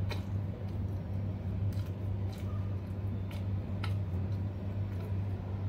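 A person chewing food, with a handful of brief clicks and crunches spread through it, over a steady low electrical hum.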